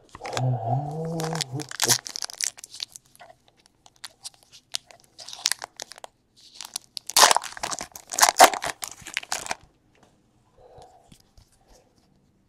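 Trading card pack wrappers being torn open and crinkled in several crackly bursts, the loudest from about seven to nine and a half seconds in. A short low hum of a voice at the start.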